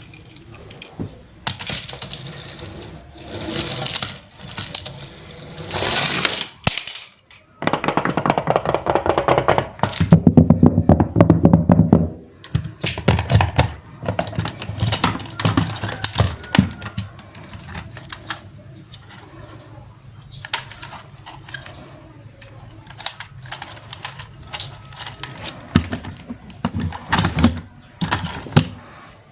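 Repeated clicking, knocking and clattering of small hard objects.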